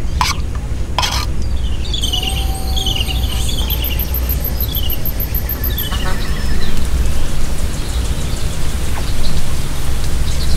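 Forest ambience: a bird repeating short falling chirps and an insect's rapid, even, high pulsing trill, over a steady low rumble. Two sharp clicks come in the first second.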